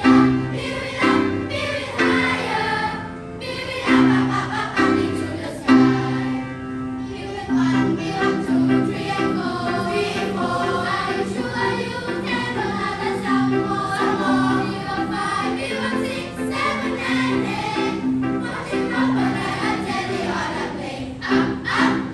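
A choir singing a song in harmony, with held low accompanying notes beneath the voices.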